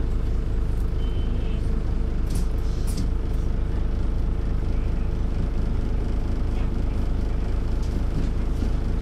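MAN NL 202 city bus's six-cylinder diesel engine idling steadily while the bus stands at a stop. Two brief high hisses come about two and a half and three seconds in.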